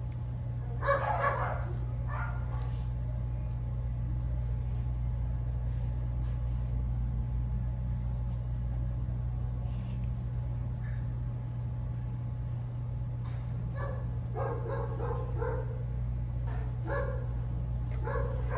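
A young Rottweiler makes short bursts of vocal sound while it searches, once about a second in and several more in the last few seconds. A steady low hum runs underneath.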